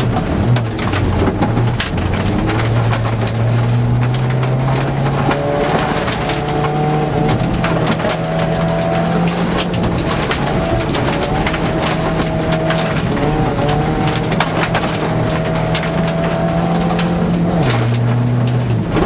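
Mk2 Volkswagen Golf rally car's engine heard from inside the cabin, pulling hard on a gravel stage with its pitch stepping up through the gears, holding steady for several seconds, then dropping sharply near the end. Gravel strikes the underside in frequent sharp clicks.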